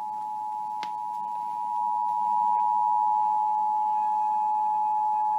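Emergency Alert System two-tone attention signal (853 and 960 Hz sounded together): a steady dual-tone, growing a little louder about two seconds in, with a single click about a second in. It is the alert tone that opens the National Periodic Test before the spoken test message.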